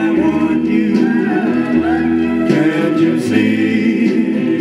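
A 1950s rhythm-and-blues vocal-group record playing through a Webcor portable hi-fi phonograph: singing over a band backing, with no lead lyric clearly carried.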